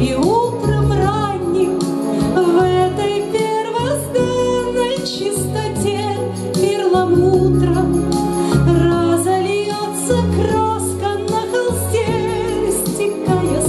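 A woman singing with vibrato into a microphone, amplified through PA speakers, over instrumental accompaniment with sustained bass notes.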